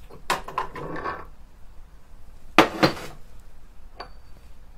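Steel press plate and a large steel socket being handled on a shop press over a guide wheel: a clatter of metal knocks in the first second, then two sharp metal clanks close together just past halfway, and a light click with a short ring near the end.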